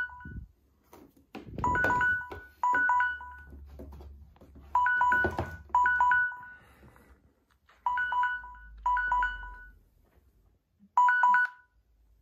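Samsung smartphone timer alert sounding the 'time expired' signal. It gives short clusters of electronic beeps in pairs about a second apart, repeating every three seconds or so, and stops near the end. Light taps and knocks of handling are heard under it.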